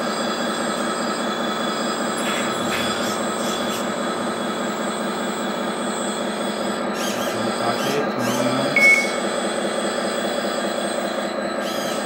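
Hydraulic pump of a 1/14 scale metal RC wheel loader whining steadily while the boom lifts the bucket, with a short high squeak about nine seconds in.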